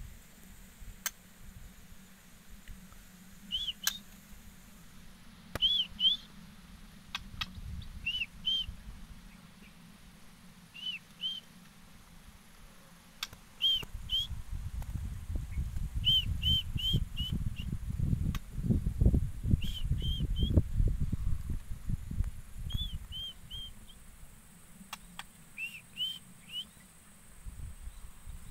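White-rumped shama (murai batu) giving short whistled call notes in quick clusters of two to four, repeated every couple of seconds. A low rumble rises under the calls about halfway through and fades a few seconds later.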